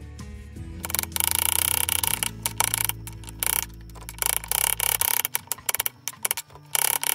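A countertop blender runs, blending the sauce ingredients, and cuts off about five seconds in. Then a knife chops carrots on a wooden board in quick, sharp strokes.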